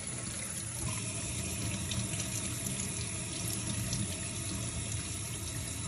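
Water running steadily from a pull-down kitchen sprayer, pouring over a dog's back and splashing into a stainless steel sink.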